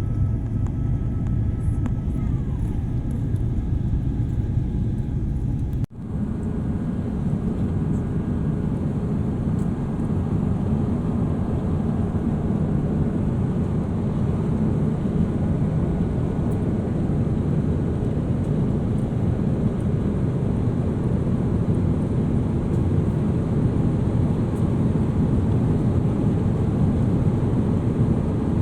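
Steady engine and airflow noise inside a jet airliner's cabin, a deep even rumble, with a brief break about six seconds in.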